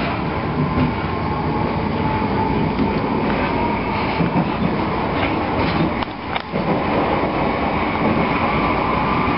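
Electric passenger train running, a steady rumble of wheels on the track under a motor whine that rises slowly in pitch as it gathers speed. Briefly quieter with a few clicks about six seconds in.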